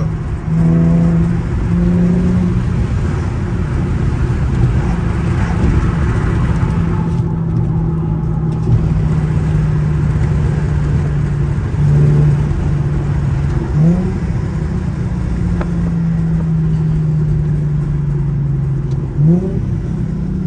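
Infiniti G37 sedan's VQ37 V6 with its muffler deleted, heard from inside the cabin while cruising: a steady, solid exhaust tone over tyre and road noise. The tone dips briefly a couple of times and gives two short rising blips in the second half.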